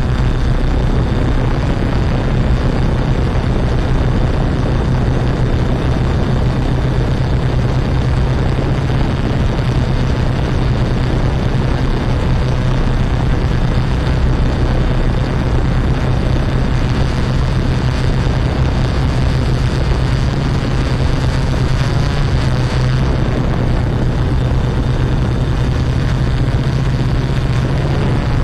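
Yuneec Typhoon Q500 quadcopter's motors and propellers running steadily in flight: a constant low hum over a rushing noise.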